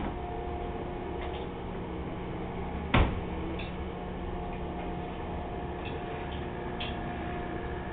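Cats eating from small saucers: faint scattered clicks of their mouths on the dishes, with one sharper click about three seconds in, over a steady low hum.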